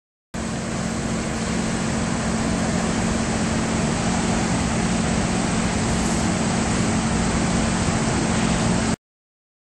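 Steady wind rushing over an outdoor microphone, with a low, even hum beneath it; the sound cuts in abruptly just after the start and cuts off abruptly near the end.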